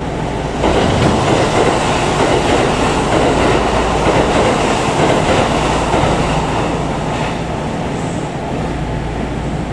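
Another train passing close alongside, heard from inside a standing train: a loud rush of wheels on rails that starts suddenly under a second in and eases after about seven seconds.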